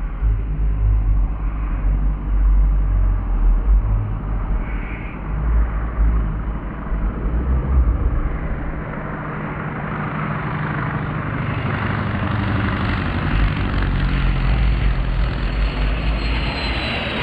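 Engine of a large-scale radio-controlled model propeller aircraft running with a heavy, uneven low rumble. The sound grows fuller and brighter over the last several seconds.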